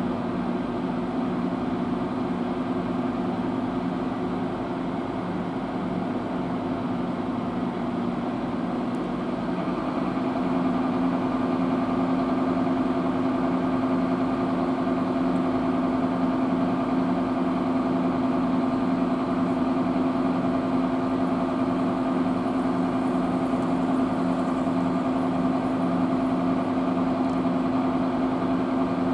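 Fire-engine diesel engines running steadily with an even hum, a little louder about ten seconds in.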